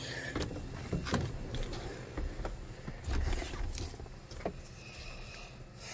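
A string of light knocks, clicks and rustles as a person climbs into a pickup's cab and moves around the driver's seat, with a low rumble about three seconds in.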